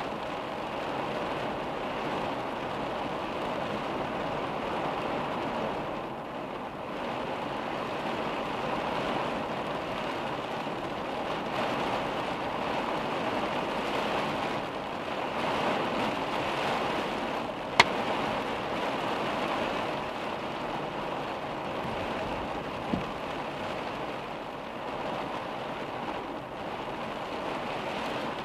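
Heavy rain pelting the car's windshield and roof, heard from inside the car as a steady hiss that swells and eases. A single sharp knock sounds about two-thirds of the way through, with a fainter one a few seconds later.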